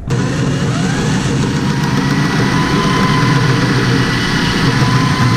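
Electric drill running under load with a spot weld cutter bit, cutting out a spot weld in the steel factory engine mount bracket. Its motor whine rises in pitch over the first second or two, then holds steady.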